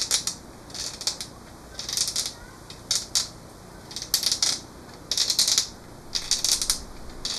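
Thin pocket-knife blade scraping the inside of a river cane arrow shaft's mouth as the cane is turned, reaming out the socket to thin its wall for a friction-fit foreshaft. It comes as a series of short rasping strokes, roughly one or two a second.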